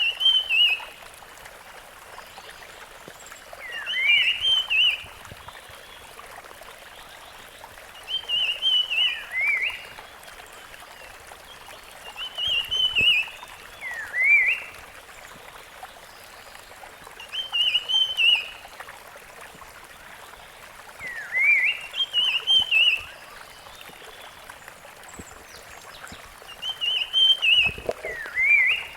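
Rusty-fronted barwing singing: a short phrase of clear whistled notes with a quick upward sweep, repeated about every four seconds, seven times in all, over a steady rushing hiss.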